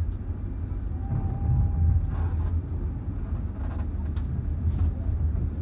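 Passenger train running: a steady low rumble with a few faint clicks.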